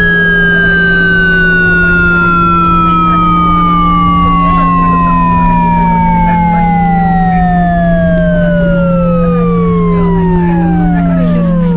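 Simulated VVVF inverter and traction-motor sound of an electric train slowing toward a stop, played by a smartphone simulator app set to synchronous 60-pulse mode. Several whining tones glide steadily downward as the speed falls, dropping faster near the end, over a steady low hum.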